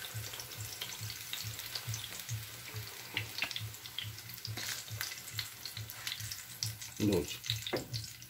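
Chicken chappal kebabs sizzling in shallow oil in a nonstick frying pan, a steady hiss with many small crackles and pops.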